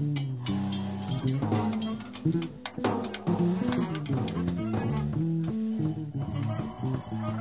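Live band music: a drum kit playing busy hits over a moving bass guitar line.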